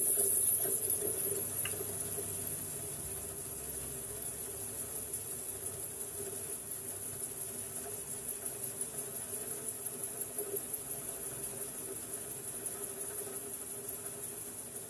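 Grizzly G0555XH 14-inch resaw bandsaw running with a Laguna Resaw King carbide blade, resawing a 10-1/2-inch-tall ash block. It gives a steady high-pitched hiss over a low hum, and the blade enters the wood partway through.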